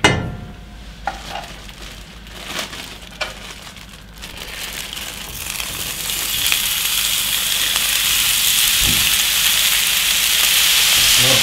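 Mixed ground meat sizzling in hot oil in a cast-iron skillet: after a clunk at the start and a few light knocks, the frying begins about four seconds in and grows steadily louder as the meat goes into the pan.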